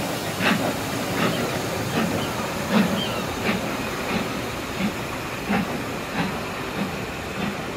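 Passenger coaches of a departing steam-hauled train rolling slowly past, their wheels clacking in a regular rhythm about every two-thirds of a second that quickens slightly as the train gathers speed, over a steady hiss.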